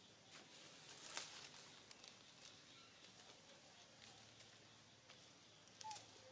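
Near silence: faint outdoor ambience with scattered small clicks and rustles, a slightly louder rustle a little after a second in, and a brief faint chirp near the end.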